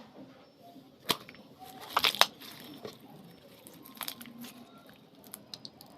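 Glitter slime being squished and pulled, making sticky crackling pops. The loudest is a quick cluster about two seconds in, with others around four seconds and a few small ones near the end.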